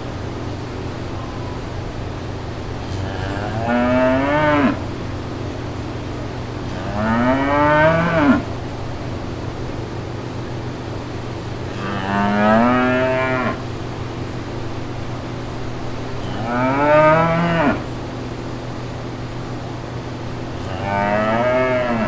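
Cow mooing repeatedly: five drawn-out moos about every four to five seconds, each rising in pitch. A steady low hum runs underneath.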